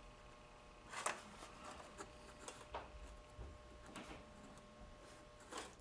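Faint scattered clicks and taps of wires being set into the clips of a helping-hands soldering stand, about five small knocks, the clearest about a second in.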